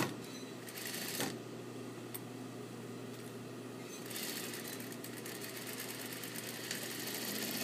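Juki industrial lockstitch sewing machine stitching fabric in two runs, one for about the first second and another from about four seconds in, with a quieter pause between as the curved pocket seam is guided. A steady low hum sits underneath.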